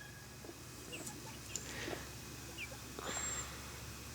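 Faint clucking and soft calls from a backyard chicken flock, with a few short, thin, high chirps.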